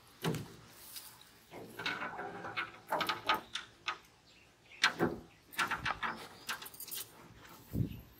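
Irregular knocks, taps and clatters as a fishing rod, line and a small freshly caught fish are handled in a small boat, with a dull low thump near the end.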